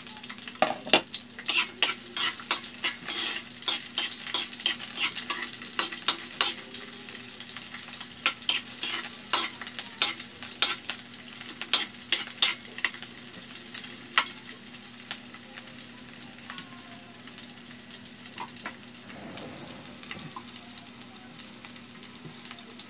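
Garlic and sliced onion sizzling in hot oil in a metal wok, with a metal utensil scraping and clicking against the pan as they are stirred. The clicks come thick and fast for about the first dozen seconds, then thin out while the steady sizzle goes on.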